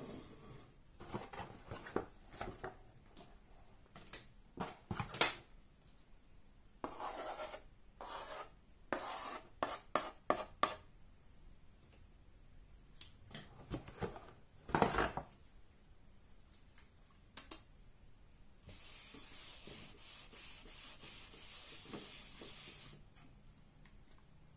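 Chalk scratching on the chalkboard side of a wooden tabletop board in short strokes, in several clusters, then a board eraser rubbing across the chalkboard steadily for about four seconds near the end.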